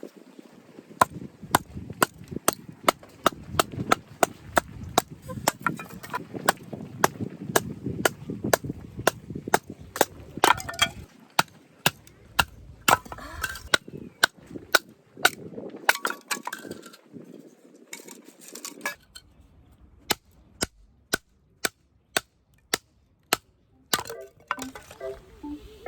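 A hammer driving tent pegs: steady, regular sharp metallic strikes, about two a second, pausing briefly twice. Faint music comes in near the end.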